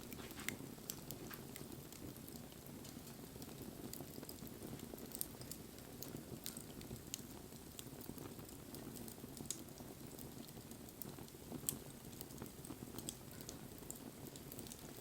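Wood bonfire burning: a steady low rustle of flames with irregular sharp crackles and pops from the burning wood, a louder pop about five seconds in and the loudest near the end.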